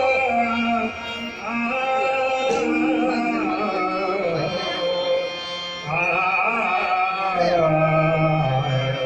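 Marathi abhang, a devotional song, performed by a bhajani mandal: held, gliding melody notes over shifting low notes, with singing.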